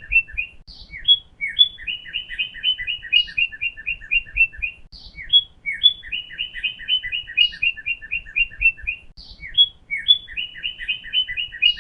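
Cardinal singing: fast series of short paired whistled notes, about eight a second, broken every few seconds by a couple of longer slurred notes, in a phrase that repeats over and over.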